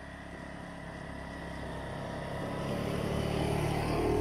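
A vehicle engine running and growing steadily louder as it approaches, cut off abruptly at the end.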